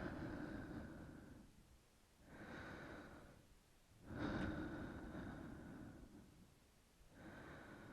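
Close-miked, slow, deep human breathing: four long breaths, each one swelling and fading over a second or two.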